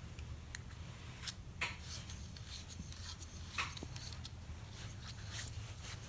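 Quiet handling of a butane soldering iron's parts: a few small clicks and light scrapes, over a steady low hum.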